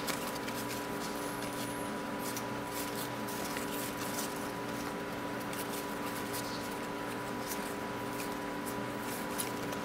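Paper trading cards being shuffled and flipped by hand: faint, irregular soft clicks and slides of card stock over a steady background hum.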